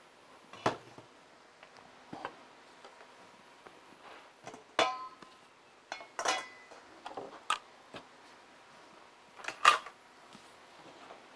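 Dishes and utensils clinking and knocking now and then, with quiet gaps between; one clink about five seconds in rings briefly.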